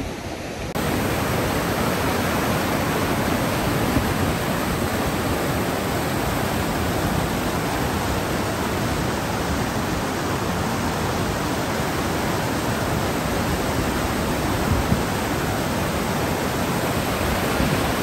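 Steady rushing of a large waterfall and the whitewater creek below it, Lower Yosemite Fall and its boulder-strewn cascade, an even dense hiss with no let-up. It comes in suddenly under a second in.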